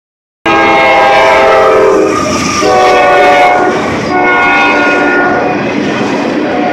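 CSX diesel freight locomotive's air horn sounding loudly as the train passes at speed, a chord of several notes whose pitch shifts about two seconds in, with a brief dip near four seconds before it sounds again. The train's rumble runs underneath.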